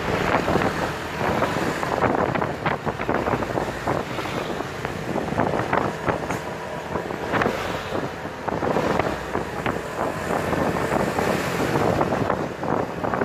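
Wind rushing and buffeting over the microphone of a moving vehicle, mixed with the engine and exhaust of a decorated light truck driving close behind. The rush rises and falls in gusts.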